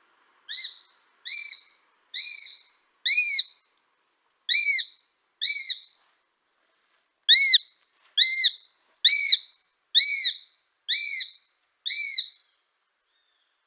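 Eurasian sparrowhawk calling: a clear call that rises and falls in pitch, repeated about once a second. There are two runs of six calls with a short pause between them.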